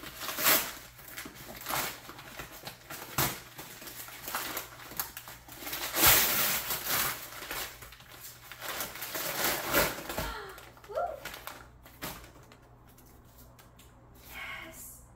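Gift packaging being handled and opened: irregular crinkling and rustling of wrapping, loudest about six seconds in, dying down to a few quieter rustles after about ten seconds.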